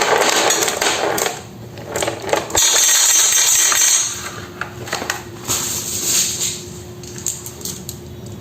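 Marbles rolling and clattering down a Haba marble run: a dense rattle of small clicks, loud near the start and again around three to four seconds in, with softer scattered clicking between.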